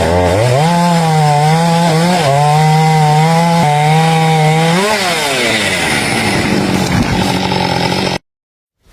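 Chainsaw running at high revs while cutting through a tree trunk, its pitch wavering slightly under load. About five seconds in the throttle is let off and the engine winds down, followed by a couple of seconds of rougher noise before the sound stops abruptly near the end.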